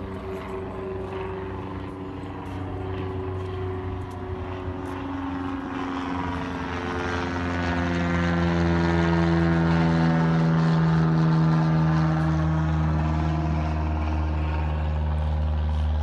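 Small propeller airplane flying low overhead, its engine drone growing louder to a peak about ten seconds in, with the pitch sinking slightly as it passes.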